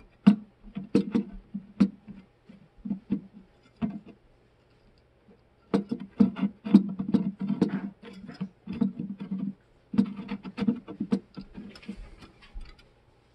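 Hard plastic clicking, tapping and knocking as a projector lens assembly is turned and worked into a Saab 9-3 headlight housing. It comes in irregular bursts of quick clicks with short pauses between.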